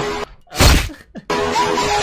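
A short, loud burst of noise about half a second in, an inserted meme-edit sound effect, followed by guitar music coming in.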